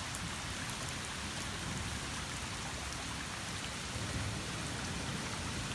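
Heavy rain pouring steadily onto a street, with drops ticking close by.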